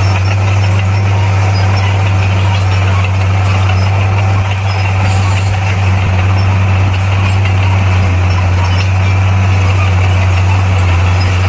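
Heavy earthmoving machine's diesel engine running steadily with a loud, unchanging low hum.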